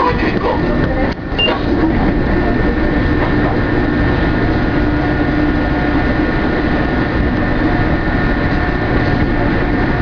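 Mexico City Metro MP-82 rubber-tyred train running, heard from the driver's cab, with the steady high whines of its French-made chopper traction control over the rolling noise.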